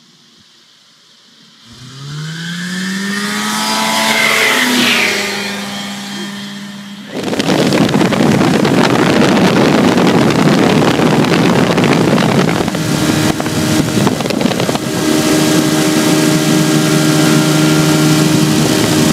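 Rotax two-stroke ultralight engine on a low fly-by, its note rising and swelling as the plane comes in low, loudest about four seconds in, then fading. About seven seconds in the sound jumps abruptly to a steady, loud mix of engine and wind rush from on board the aircraft in flight.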